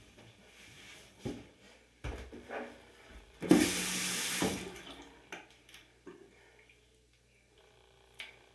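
Bathroom sink tap turned on and running for about a second, with a few short knocks and clatter of things being handled at the sink before and after.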